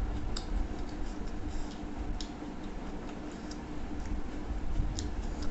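Mukbang eating sounds: scattered light, sharp clicks and crackles at irregular spacing, from hand-eating rice and fish off a plate and chewing, over a steady low hum.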